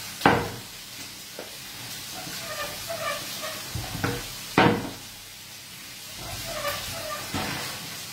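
Long rolling pin working a sheet of green pasta dough on a wooden pastry board: rolling with a steady rubbing noise, and knocking on the board twice loudly, right at the start and about halfway, with a few lighter knocks between.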